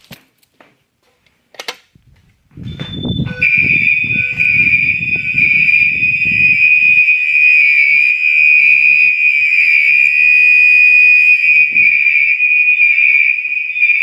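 Fire alarm sounder comes on about three seconds in and sounds one continuous high-pitched tone, with a low rumble under it for the first few seconds.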